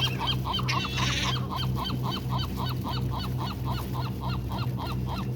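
A bird calling over and over in short, even notes, about five a second, with a steady low hum beneath.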